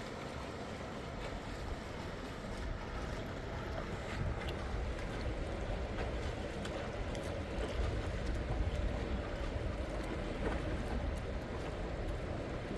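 Steady rushing of a flowing mountain river, with a few faint clicks.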